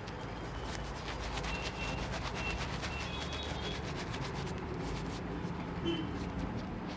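Razor scraping over beard stubble in short, irregular strokes, over a steady low background hum.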